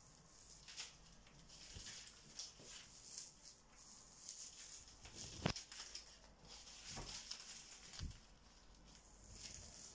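Masking tape being peeled off a painted wall: a faint, crackly ripping, with a few sharper clicks in the second half.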